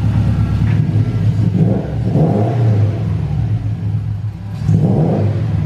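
Subaru WRX's turbocharged 2.5-litre flat-four engine running, its speed swelling and settling about two and five seconds in. It has just been restarted after the battery was disconnected, so the ECU is relearning its idle.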